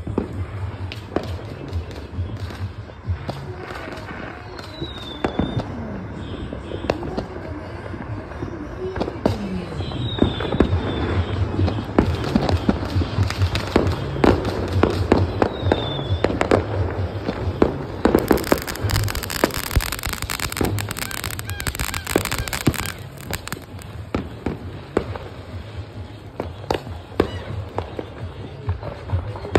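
Fireworks going off all around: dense, irregular crackling and popping over low booms, with a stretch of louder hissing about two-thirds of the way through.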